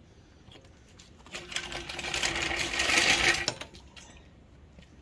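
Impact wrench running for about two seconds, spinning a lug nut down onto the wheel; it grows louder as it snugs the nut, then cuts off.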